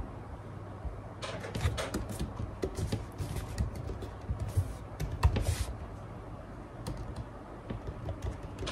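Irregular light clicks, taps and short scratchy rustles in a busy run, easing off about six seconds in and picking up again near the end, over a steady low hum.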